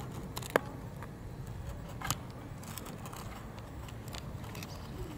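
Steady low rumble of outdoor background noise, with two sharp clicks, one about half a second in and a fainter one about two seconds in.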